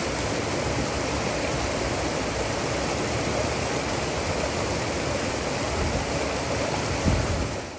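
Water flowing over flat rock ledges in a shallow creek, a steady rushing splash. A brief low bump comes about seven seconds in, and the sound then fades out.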